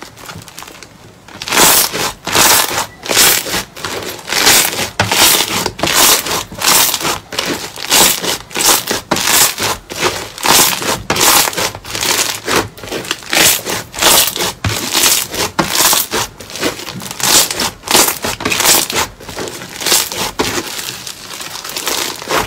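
Pink crunchy slime squeezed and kneaded by hand, crackling and crunching in quick repeated bursts about twice a second, starting about a second and a half in.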